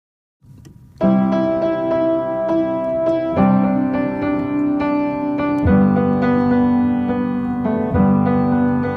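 Background music: after a brief silence, a piano comes in about a second in, playing sustained chords that change every couple of seconds.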